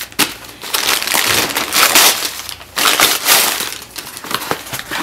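Packaging being handled: crinkling and crackling of a taped cardboard mailing box and the crumpled newspaper packed inside it, in irregular bursts with a short lull partway through.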